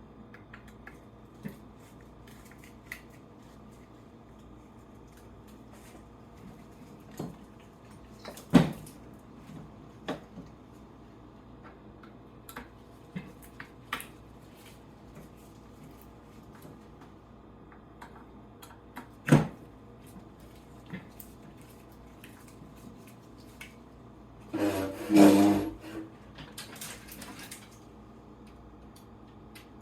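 Sporadic clicks and knocks of tools and parts being handled while screws are taken out of a Traxxas Sledge RC truck's chassis, with two sharp knocks and a louder rattling cluster near the end, over a faint steady hum.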